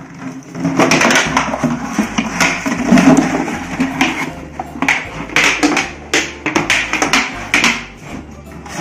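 Background music with frequent sharp percussive hits.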